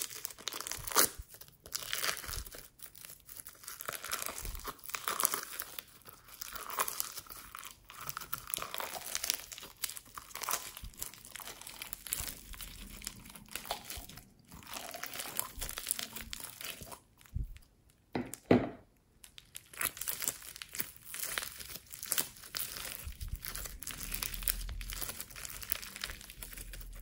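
Yellow floam, small foam beads held in clear slime, crackling under fingers as it is pressed in its pot, scooped out and stretched: a dense run of small crackles and pops, with a couple of brief pauses.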